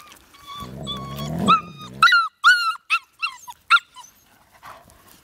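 A puppy squealing and yelping in a quick string of short high cries during rough play with an adult dog, over a low growl in the first half.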